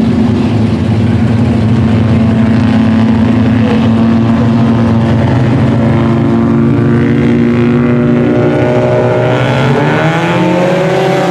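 Several IMCA Sport Compact four-cylinder race cars running together at steady revs, then their engine notes rise in pitch near the end as the pack speeds up.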